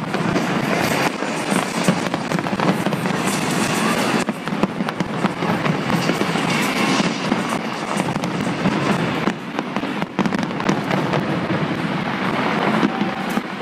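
Fireworks display at its height: many shells bursting together in a dense, unbroken crackling and popping.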